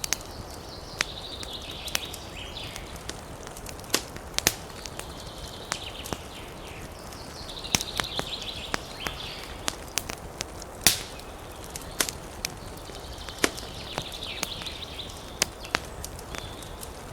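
Wood fire crackling, with sharp, irregular pops over a steady low hiss. A high, fast trill comes and goes several times.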